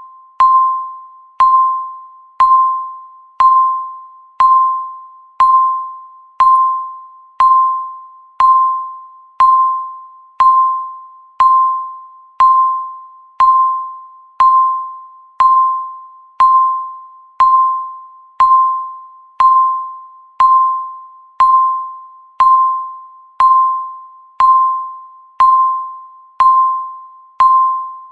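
Countdown timer beep, one short electronic ping every second, each starting sharply and fading away before the next, marking off the seconds.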